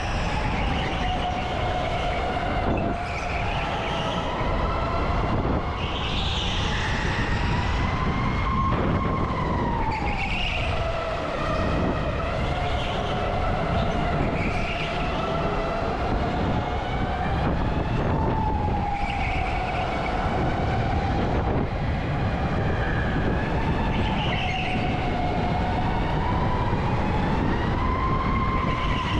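Electric go-kart's motor whining under hard driving, its pitch rising and falling as the kart speeds up on the straights and slows for the corners, over steady tyre and track noise.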